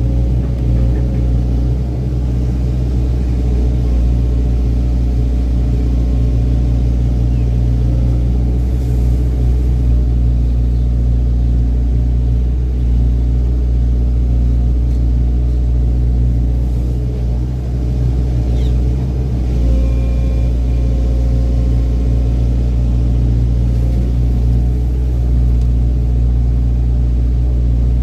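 Excavator's diesel engine running steadily with a deep drone, dipping briefly about seventeen seconds in.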